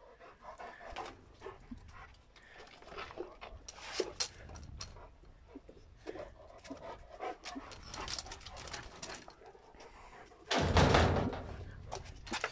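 Cane Corso and German Shepherd play-fighting at close range: panting, short whimpers and mouthing noises, with scattered clicks and rattles. A loud burst of rustling handling noise about eleven seconds in is the loudest sound.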